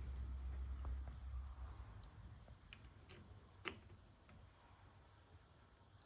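Faint handling noise of small 3D-printer parts and tools: a few light clicks and taps, with one sharper click about three and a half seconds in.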